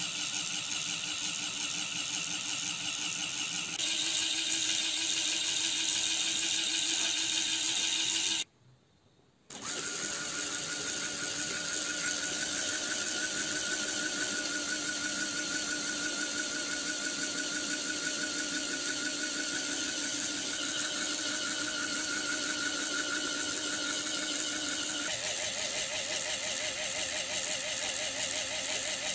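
Small geared DC motor running steadily, turning a homemade RC differential axle through a driveshaft: a steady whirring hum of motor and gears. It cuts out for about a second some eight seconds in and shifts in tone a couple of times.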